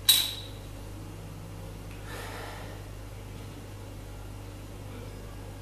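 A person sniffing at the neck of an opened beer bottle: one short, sharp sniff at the start, then a softer, longer one about two seconds in, over a steady low hum.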